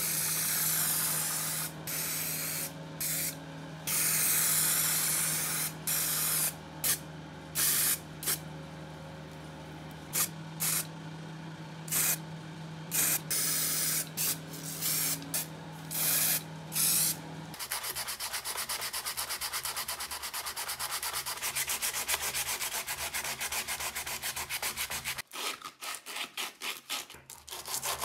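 An aerosol spray-paint can hissing in a series of short bursts over a steady low hum. About two thirds of the way in, this gives way to rapid back-and-forth rubbing of sandpaper against a small wooden handle, with a few brief pauses near the end.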